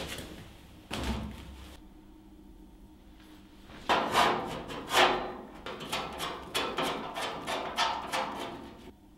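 A cloth rubbed in quick repeated wiping strokes over the black sheet-steel panels of a welding cart, starting about four seconds in. Before that, a knock or two as the steel cart is handled.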